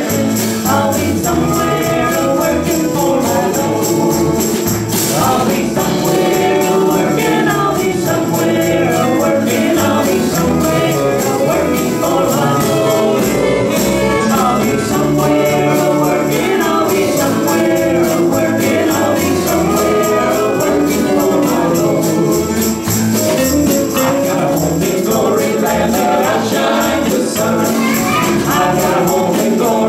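A live gospel band playing: several voices singing together over electric guitars and a drum kit, keeping a steady beat throughout.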